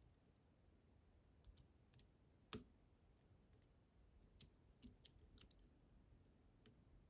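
Sparse, faint small clicks of a lock pick working the tumblers inside a Fichet F3D high-security lock cylinder, with one sharper click about two and a half seconds in.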